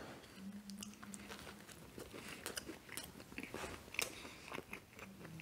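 Close-miked mukbang eating sounds: irregular soft crunches and wet mouth clicks of chewing fast-food sandwich.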